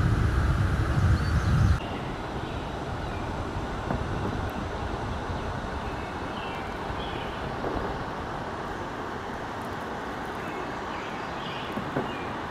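Wind buffeting the microphone with a low rumble for the first couple of seconds, cutting off suddenly. Then a steady outdoor background hiss with a few faint high chirps scattered through it.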